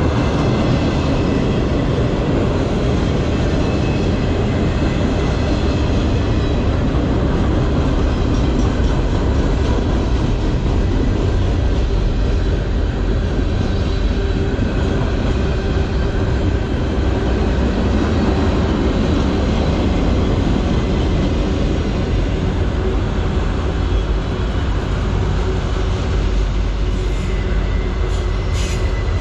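Freight train cars passing close at speed: a steady rumble and rattle of steel wheels on rail, with a few sharp clanks near the end.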